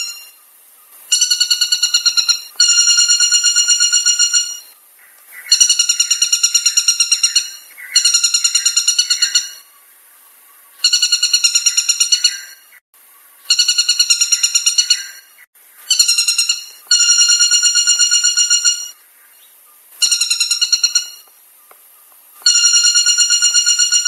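White-bellied woodpecker calling: loud, rapid series of ringing notes, given in about ten bouts of one to two seconds each with short pauses between.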